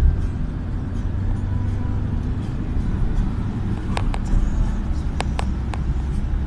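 Car cabin road noise at highway speed: a steady low rumble of engine and tyres, with a few light clicks about four to six seconds in.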